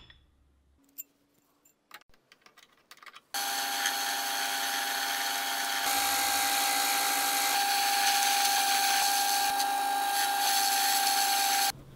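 A few faint clicks, then about three seconds in a metal lathe is cutting a steel shaft with a carbide insert. It makes a steady machining noise with a steady high ring over it, which stops suddenly near the end.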